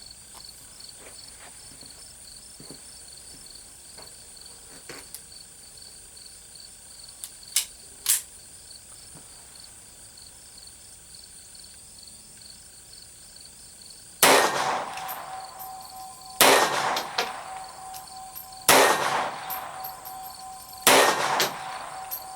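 Savage Model 1907 .32 ACP semi-automatic pistol firing four shots about two seconds apart, each followed by a metallic ring. Two sharp clicks come earlier, with insects chirring steadily.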